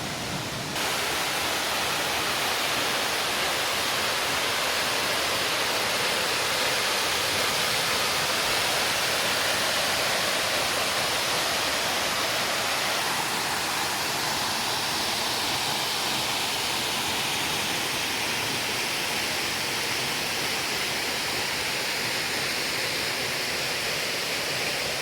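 A large waterfall: the steady, even rush of falling water.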